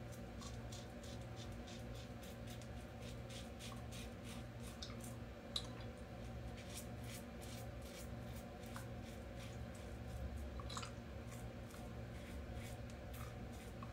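Open-comb double-edge safety razor scraping through lathered stubble: runs of quick, short strokes that crackle as the whiskers are cut, with one sharper tick about five and a half seconds in. A steady low hum sits underneath.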